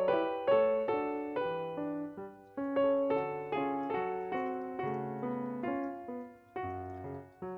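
Background keyboard music: a gentle melody of struck notes that ring and fade, two or three a second.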